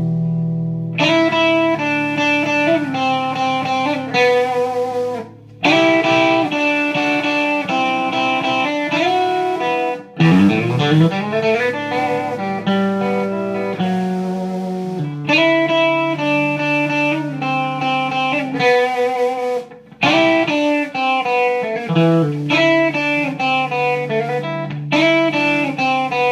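Electric Telecaster-style guitar through a GFS Professional Series '63 7.8K overwound bridge pickup, playing bluesy single-note licks and double-stops with string bends. The phrases break off briefly three times.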